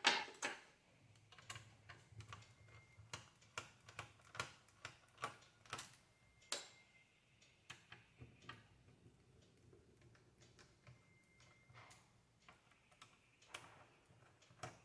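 Small screwdriver backing screws out of an Acer laptop's plastic back panel: faint, irregular clicks and ticks about one or two a second, with a louder click right at the start and a few brief squeaks.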